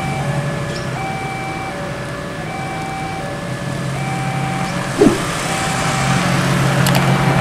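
Road traffic with engines running steadily, over a faint electronic beeping that alternates between two pitches in a slow repeating pattern. A short knock about five seconds in.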